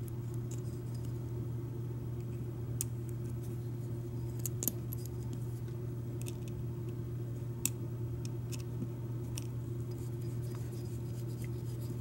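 Sharp little metal clicks and ticks of lock cylinder parts being handled and prodded with a thin pointed hand tool, a few at a time, the clearest about four and a half and seven and a half seconds in, over a steady low hum.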